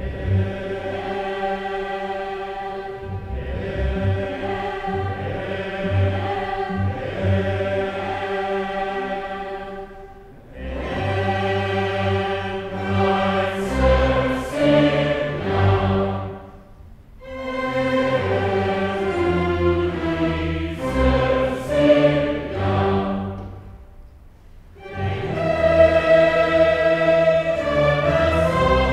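Large choir singing with a string orchestra, a classical choral piece in long sustained phrases that dip briefly about ten, seventeen and twenty-four seconds in.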